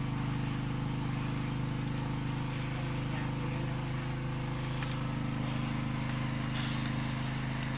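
An engine running steadily at constant speed with a low, even hum, and a faint hiss above it.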